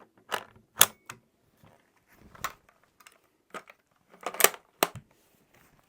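A Kar98k Mauser bolt going back into the rifle's receiver and being worked: a string of sharp metallic clicks and clacks, loudest about a second in and again near the end.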